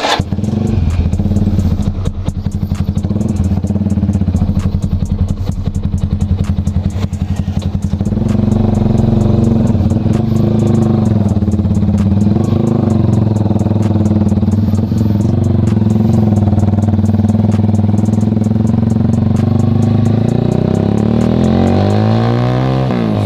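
Sigma 250 motorcycle engine, just tuned up, running steadily at idle, then pulling away. About eight seconds in it gets fuller and louder, and near the end the revs rise again and again as it accelerates through the gears.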